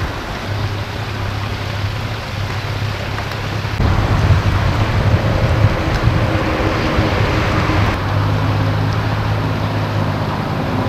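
Lakeshore ambience of wind buffeting the microphone and water, over a steady low motor hum. The sound changes abruptly about four seconds in and again about eight seconds in, where the shots are cut together.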